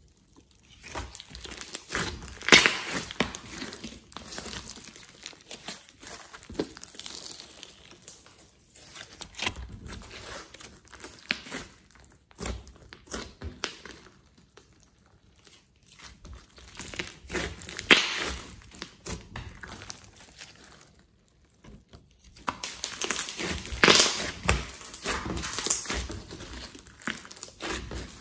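Glossy slime mixed with clay and small beads being squeezed, stretched and pressed by hand, giving sticky crackling and popping in irregular clusters with short pauses between handfuls. The loudest bursts of crackle come a couple of seconds in, about two-thirds of the way through, and in a longer run near the end.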